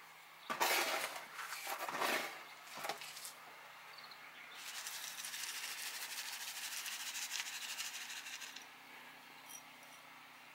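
Granular bonsai soil poured from a soil scoop into a terracotta pot over a gravel layer: a steady, fine rattling hiss of grains for about four seconds in the middle, after a few shorter rattles of grains in the first three seconds.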